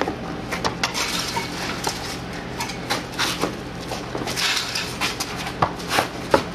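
A scuffle on a concrete floor: an irregular string of sharp knocks, slaps and shoe scrapes, the loudest hits coming near the end, over a faint low hum.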